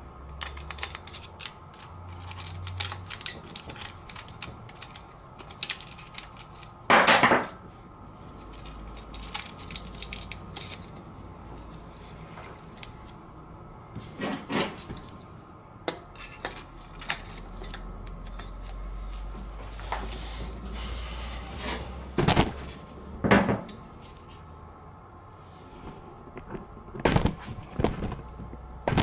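Metal engine parts clinking, knocking and scraping as a small single-cylinder ATV engine is reassembled by hand on a workbench, with several louder knocks spread through.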